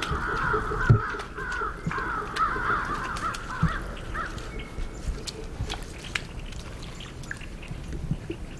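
Crows cawing in a quick, ragged series for about the first four seconds, then stopping. Scattered light crackles and a few dull thumps sound throughout.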